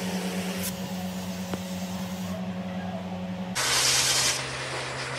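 Water hissing from a hose spray nozzle in a pet-grooming bath tub over a steady motor hum. About three and a half seconds in, it changes to a pet grooming blow dryer blowing air through its hose, a stronger hiss with its own steady hum.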